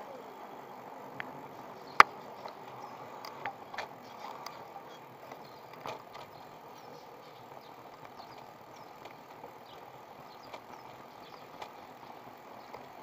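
Riding noise of an electric bicycle picked up by a bike-mounted camera: a steady rumble with scattered small clicks and rattles, and one sharp click about two seconds in.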